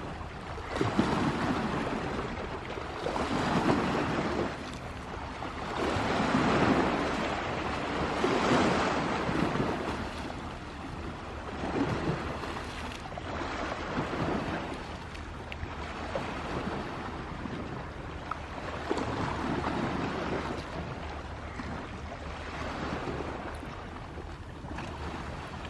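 Sea waves washing onto the shore, each surge swelling and fading every few seconds.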